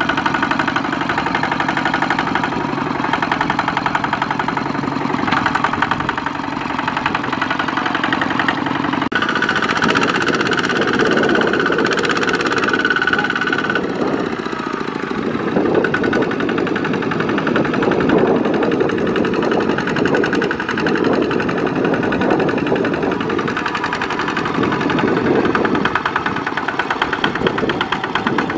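Two-wheel walking tractor's single-cylinder diesel engine chugging steadily under load as it hauls a loaded rice trailer through deep mud. The engine note changes about nine seconds in.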